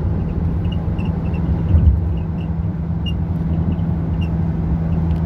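Steady low drone of a car driving at highway speed, heard from inside the cabin: engine and tyre road noise, with a brief louder low thump about two seconds in.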